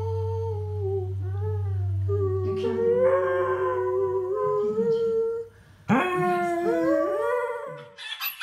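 A dog howling in long, wavering notes that slide up and down in pitch. The howl breaks off about five and a half seconds in, and a second howl with a falling start follows. A steady low hum sits under the first couple of seconds.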